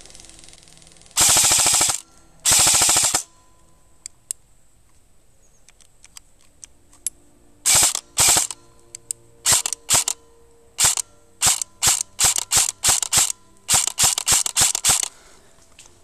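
Airsoft rifles firing: two full-auto bursts of about a second each near the start, then, after a lull, a quick string of a dozen or so short bursts and single shots.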